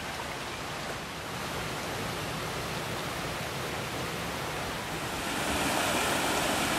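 Creek water rushing steadily, growing louder about five seconds in.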